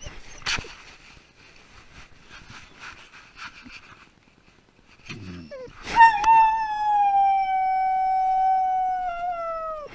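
A dog left home alone howling: after a few seconds of scuffling and rustling and a short low whine, it lets out one long howl about six seconds in, held for several seconds and slowly sinking in pitch.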